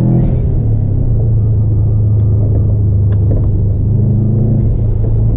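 Subaru engine and road noise heard from inside the cabin while driving: a loud, steady low drone that rises a little in pitch about four seconds in.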